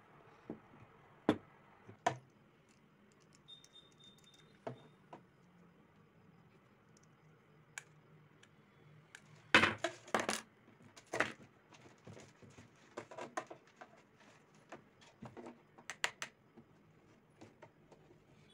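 Scattered light clicks and knocks of hands handling wires and small parts against a PVC pipe, with a burst of louder clatter about ten seconds in. A faint steady low hum runs underneath.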